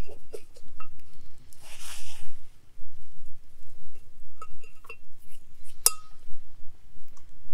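Camp cookware and utensils clinking: a series of light clinks that ring briefly, a short hiss about two seconds in, and one sharper, louder clink near the end.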